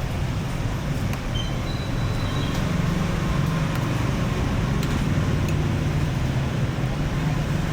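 Steady street traffic: engines running close by, with a low hum and a constant wash of road noise.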